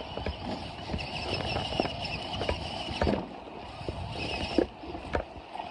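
Radio-controlled rock crawler's electric motor and gears whining in spurts as it climbs over creek rocks, with several sharp knocks of the truck on stone over the steady rush of the creek.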